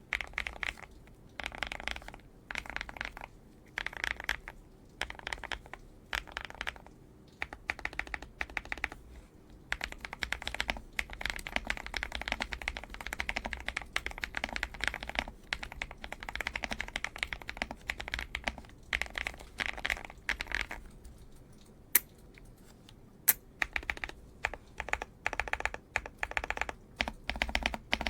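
Typing on a YUNZII AL66 65% aluminum mechanical keyboard: bursts of rapid key clicks with short pauses between them, and two sharper, louder clacks about three quarters of the way through.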